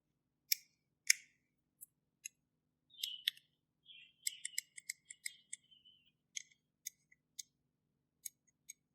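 Hand tools working on a power bank's parts during disassembly: a run of sharp, irregular clicks and snips with short scrapes, the loudest two clicks about half a second and a second in, and a quick cluster of clicks and scraping near the middle.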